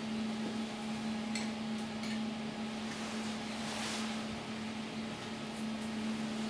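Steady low hum of running laboratory equipment, with a faint click about one and a half seconds in and a soft rustle near four seconds from gloved hands handling a reagent bottle and test tube.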